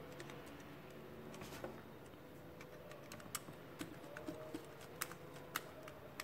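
Faint, irregular small clicks and ticks of a screwdriver tip working the terminal screws of a small plastic indicator-lamp block while a wire is fitted. The clicks come more often in the second half.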